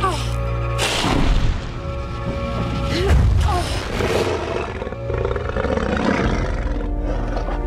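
Dramatic orchestral film score holding sustained chords, over which a dragon gives gliding screeching cries at the start and again about three seconds in, with deep booming thuds around one and three seconds in.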